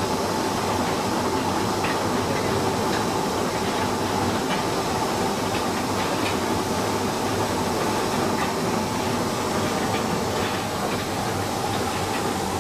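Rotary drum dryer plant machinery running steadily: a continuous mechanical noise with a sustained mid-pitched tone and a low hum, with a few faint clicks.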